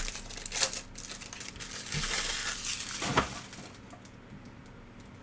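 Silver foil wrapper of a baseball trading-card pack being torn open and crinkled in the hands, with a sharp crack about three seconds in. The crinkling stops after about three and a half seconds.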